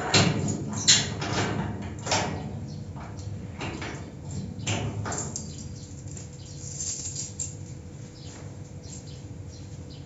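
Rusty iron garage door and its creaky mechanism squeaking and scraping in several separate strokes as it is worked, the loudest in the first five seconds, then fainter.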